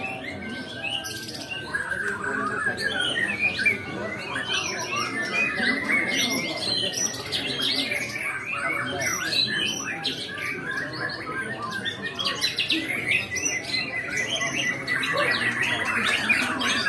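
White-rumped shama song: a dense, continuous run of rapid, varied whistles and chattering notes, with harsher squawk-like calls mixed in.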